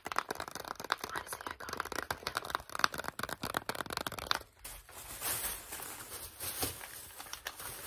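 Rapid crinkling and clicking of a plastic blister pack of ear buds handled close to the microphone. About halfway through this gives way to a steadier, hissier rustle of packaging being rummaged through.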